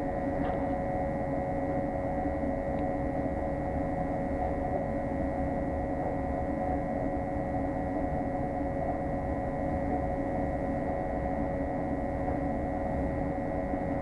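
Steady hum of a commercial gas water heater's burner running at high fire, with a low rumble under several steady whining tones from motors running nearby.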